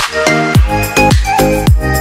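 Loud electronic dance music through a large loudspeaker rig, driven by a booming kick drum that drops in pitch on each beat, about three beats a second. The beat pauses briefly at the start, then comes back in.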